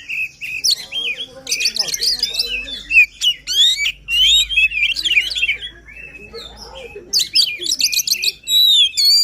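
Oriental magpie-robin (kacer) singing hard in an excited, aggressive mood. It delivers a fast, varied string of whistles, trills and sweeping notes, with denser bursts a couple of seconds in and again near the end.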